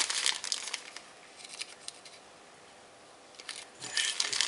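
Small clear plastic bag crinkling as fingers work at its stuck-together seal. The crinkling comes in two spells, near the start and again near the end, with a quieter stretch between.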